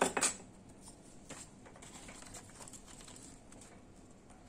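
Handling noise from a circuit board being moved about on newspaper: a short loud rustle right at the start, then faint scattered scratches and light clicks.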